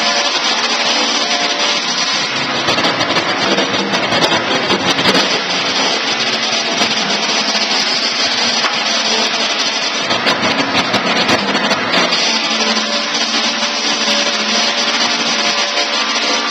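Rimu Engineering portable electric sawmill running, a loud steady mechanical noise that holds without a break.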